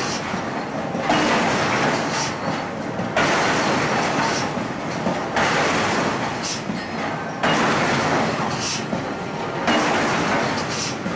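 Forge machinery running in a steady cycle: a sudden surge of loud rushing noise about every two seconds, settling between surges.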